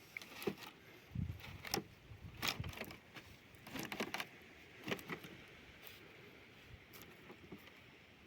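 A series of light, irregular knocks and clatters, about eight in the first five seconds, then only faint background.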